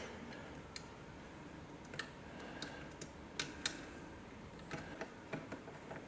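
Faint, irregular clicks and taps of small brass fittings being handled: a clock bezel's hinged latch being fitted and worked with a screwdriver.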